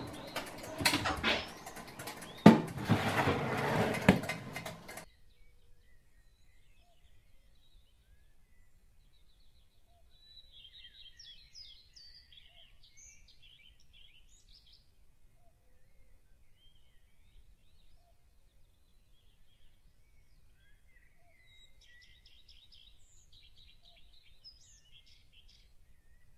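An oven door being opened, with clattering and sharp knocks for the first few seconds. After that comes a quiet stretch with faint bird chirping in two short spells.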